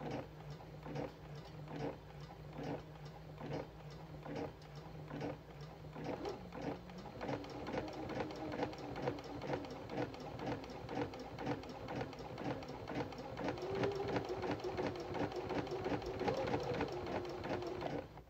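A small machine clicking in a steady rhythm over a hum. The clicks speed up about six seconds in, and the hum steps up in pitch then and again near the end.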